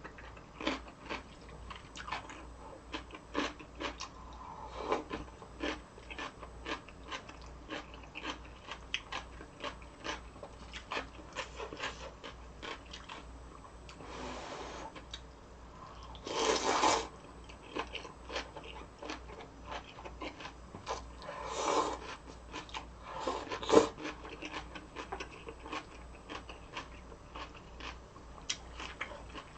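Chewing and crisp crunching of cabbage and cucumber kimchi, with many small crunches in quick succession. A few louder rushing sounds, each about a second long, break in, the loudest about halfway through.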